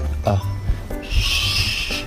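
Background music with a steady bass line. About a second in, a harsh, high-pitched animal cry lasts nearly a second.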